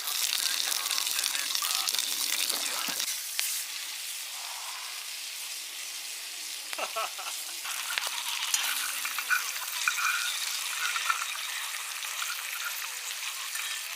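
Steady sizzling hiss with scattered crackles and pops from cooking over a freshly lit fire. It eases off about three seconds in and picks up again with sharper pops from about eight seconds.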